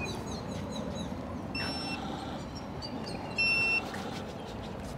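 Wall-mounted automatic hand-sanitizer dispenser giving two short electronic beeps as hands are held under it, one about a second and a half in and a louder one about three and a half seconds in. Birds chirp faintly in the background.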